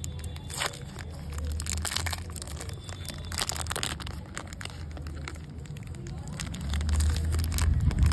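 Foil candy-bar wrapper crinkling and tearing as it is peeled back by hand, in many short crackles, and the chocolate bar is broken apart. A low rumble runs underneath and grows louder near the end.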